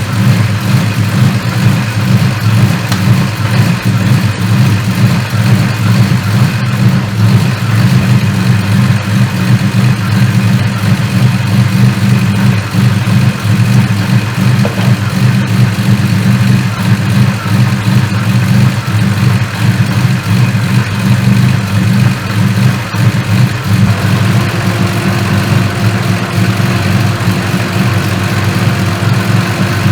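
Car engine idling steadily, most likely the turbocharged Ecotec V6 of a Holden Commodore. A faint steady tone joins in about 24 seconds in.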